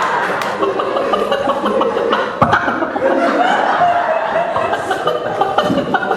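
People chuckling and laughing.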